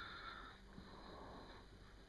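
Near silence: faint room tone, with a soft hiss that fades out in the first half second.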